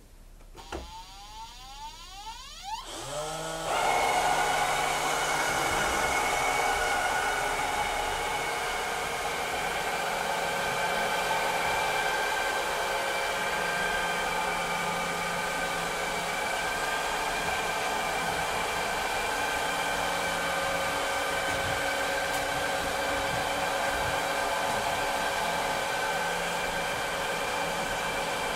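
Vileda robotic vacuum cleaner starting up: its motor whine rises quickly in pitch over the first few seconds, then settles into a steady whirring run with a high hum for the rest of the time.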